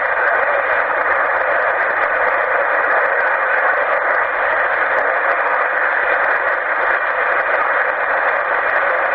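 Steady static hiss from a CB radio receiver tuned to channel 11 (27.085 MHz), heard through its speaker with a narrow, thin tone and no voice on the channel.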